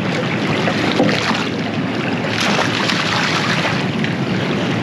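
Steady rushing wind noise on a microphone at the bow of a sailing catamaran, with sea water sounds beneath it.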